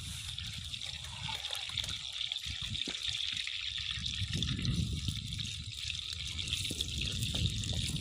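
Slices of sucuk sausage sizzling in a frying pan over an open wood fire, a steady frying hiss with small crackles, over a low rumble.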